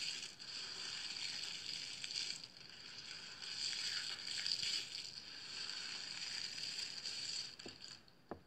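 Hands pressing into and scooping through a heap of dry crushed soap chips, a crisp steady crunching and rustling that rises and falls with each handful. It fades out near the end.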